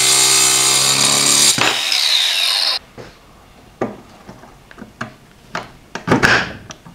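DeWalt angle grinder running under load as its cut-off wheel trims the end of a metal shaft. It is switched off about a second and a half in and winds down with a falling whine over about a second. After that come light clicks and knocks as a handwheel is fitted onto the shaft end.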